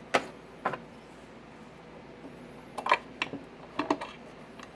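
A few scattered sharp clicks and knocks as switches and knobs on a CB radio and its wattmeter are set for a peak power reading, over a faint steady background.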